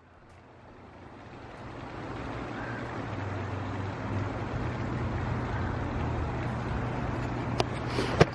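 Steady outdoor city background noise, a low rumble with a hum under it, fading in over the first two seconds; two short clicks near the end.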